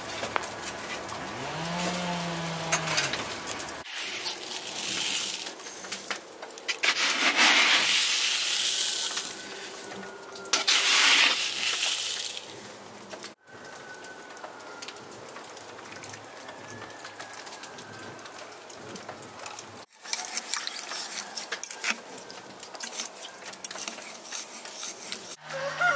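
A bird calling with low, curving notes at the start; then dry salt rustling as it is poured into a ceramic bowl; then a metal spoon clinking and scraping against the bowl as it stirs salt into water.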